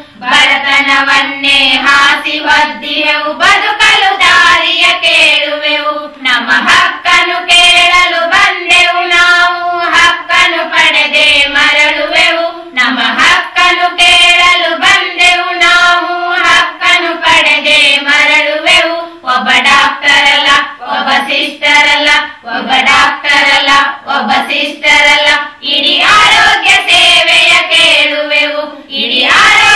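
A song sung in high voices, with long held, wavering notes and a percussive beat underneath.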